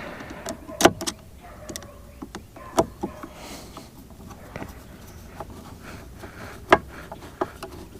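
Irregular clicks and light knocks from handling and fitting together the parts of a Mercury boat remote control while screwing it back together, with two sharper knocks, one a little under a second in and one near seven seconds in.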